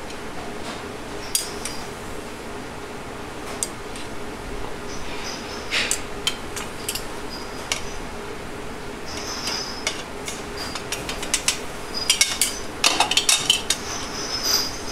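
Metal tongs clicking and clinking against an aluminium sauté pan and a ceramic plate as shrimp are plated, scattered single clicks at first, then a quick run of clinks near the end.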